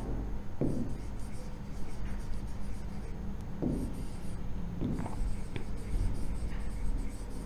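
Pen writing on an interactive whiteboard display: scratching strokes with a few soft knocks as the pen meets the screen, over a steady low hum.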